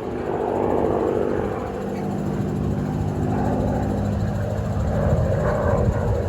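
P-51D Mustang's V-12 Merlin engine running with a steady, loud drone.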